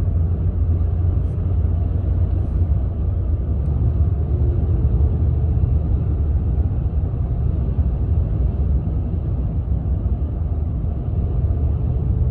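Steady low rumble of a car driving, heard from inside the cabin: road and engine noise with no change in pace.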